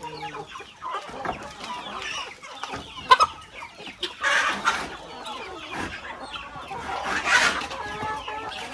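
Chickens clucking and calling around a coop. A sharp knock comes about three seconds in, and two short rustling scrapes follow as a corrugated roof sheet is handled and set on top of the coop.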